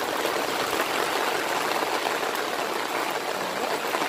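Steady rain falling on a wet tiled terrace floor, an even, unbroken hiss of water.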